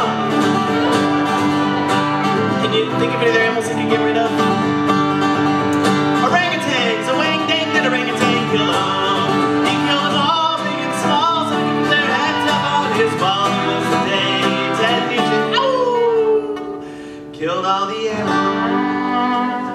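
Fiddle playing a melody with pitch slides over a strummed acoustic guitar, an instrumental folk/bluegrass break. Near the end the music drops away for about a second under a falling fiddle slide, then both come back in.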